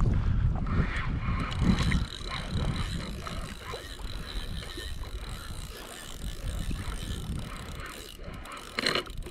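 Saltwater spinning reel being cranked steadily under load, its gears whirring and clicking as line is wound in on a fish. A low rumble sits underneath and eases about two seconds in.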